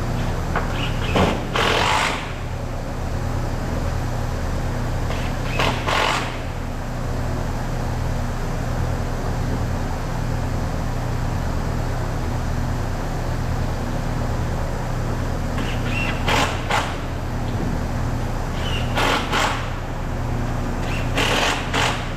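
Workshop machinery running with a steady hum, broken about six times by short sharp hissing bursts.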